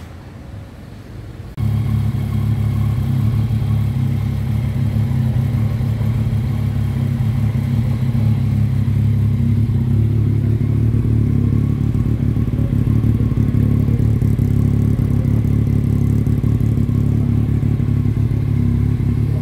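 Yamaha Tracer 900 GT's three-cylinder engine idling steadily through a newly fitted Yoshimura R-77S slip-on exhaust, coming in abruptly about one and a half seconds in.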